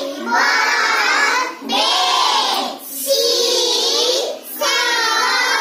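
Group of young schoolchildren chanting a phonics drill in unison, sing-song, in phrases of about a second each with short breaks between, four in all.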